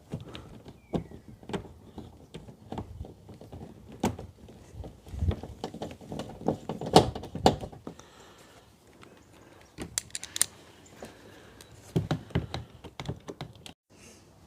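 Irregular clicks, taps and knocks of a car's plastic door panel trim and its screws being refitted by hand, with a quick run of ticks near the end.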